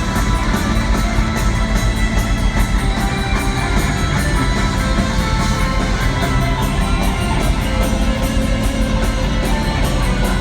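Metal band playing live through an arena PA, with distorted electric guitars and a steady drum beat, during a sound check.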